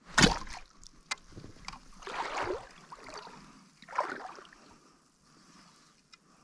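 Splashing in shallow seawater as a hand fish spear is jabbed into it: a sharp loud splash right at the start, then two more rushing splashes about two and four seconds in.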